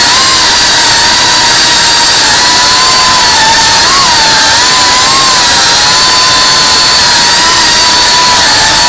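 FPV quadcopter's brushless motors and propellers whining steadily in flight, heard close from the drone's onboard camera. The pitch holds near one note, with small rises and dips as the throttle changes, the clearest about four and five seconds in.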